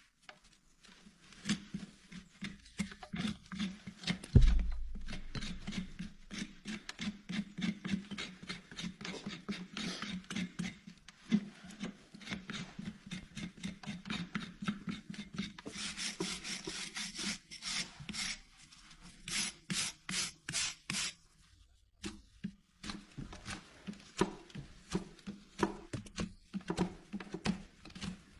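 Hoof rasp filing a horse's hoof wall, in a long run of quick back-and-forth strokes, with a single dull thump about four seconds in.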